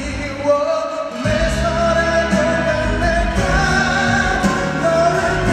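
One male vocalist singing a slow pop song into a microphone over backing music. The low accompaniment drops away for about a second near the start, then comes back in under the voice.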